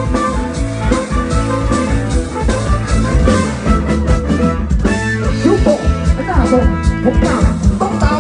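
A live band playing, with guitar over a steady drum beat.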